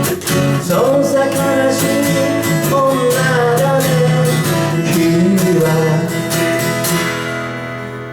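Acoustic guitar closing the song: a few strums, then the last chord left ringing and slowly dying away, with a held, wavering sung note over the first part.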